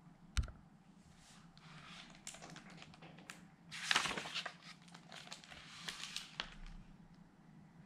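A page of a hardcover picture book being turned, a papery swish about four seconds in, with a sharp click near the start and faint rustles of the book being handled.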